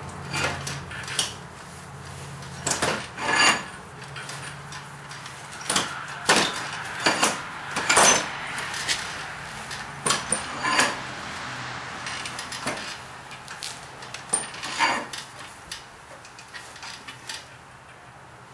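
Irregular metallic clinks, knocks and scrapes from a rust-stripped blacksmith vise's steel screw and handle being worked. The screw is still stiff in its threads.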